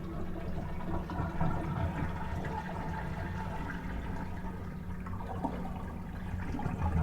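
Toilet flushing, with water gushing and draining out of the tank and bowl as a steady wash of water. The supply stop is shut off, so the tank is emptying without refilling.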